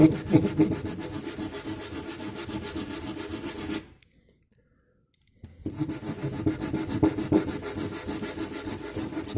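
Rubber V-brake pad rubbed on sandpaper in quick back-and-forth strokes; the strokes pause for about a second and a half midway, then resume. The pad is being scuffed flat to remove its shiny glazed surface, the cause of the brakes squealing.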